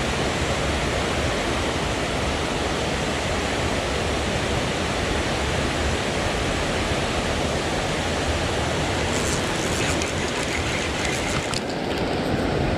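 Steady rush of fast-flowing river water, with a few faint scratchy sounds near the end.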